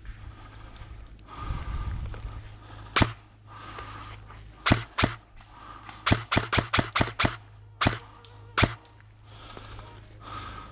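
Airsoft gun firing close by: a single sharp shot, then two, then a quick string of about eight shots, then two more spaced shots.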